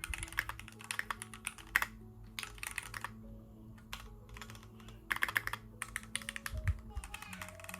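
Typing on a Keychron Q1 aluminium-bodied mechanical keyboard with linear red switches: several bursts of rapid keystrokes separated by short pauses, with background music underneath.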